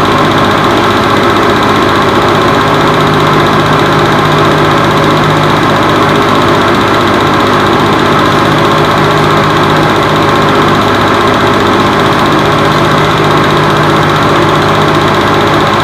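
Home-movie film projector running steadily: a constant mechanical whir with a steady low hum.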